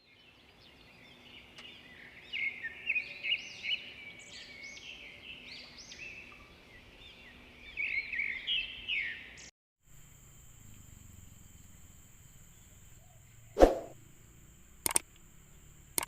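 A bird singing short, repeated whistled phrases of rising and falling notes over faint background noise. Past the halfway point the sound cuts out abruptly, giving way to a faint high steady whine and two sharp knocks, the first of them the loudest sound here.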